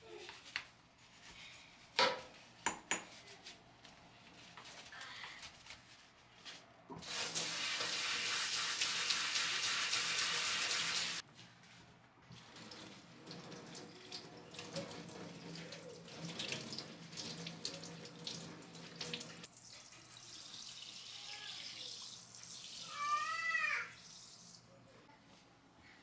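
Water running hard from a kitchen mixer tap into a stainless steel sink for about four seconds, then a softer flow from the tap's pull-out spray hose as the basin is rinsed and rubbed clean. A few sharp knocks come before the water, and a brief high voice near the end.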